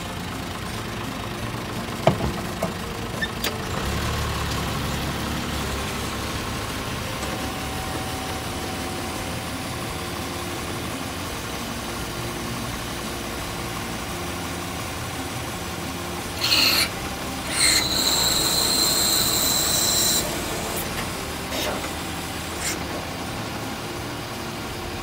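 Isuzu Forward truck's diesel engine idling steadily. There is a sharp click about two seconds in, and about two-thirds of the way through a high-pitched squeal that stops briefly, then holds for about two and a half seconds.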